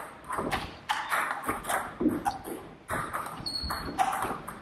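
Table tennis rally: the ball clicks sharply off bats and table in quick, irregular succession. There is a brief high squeak about three and a half seconds in.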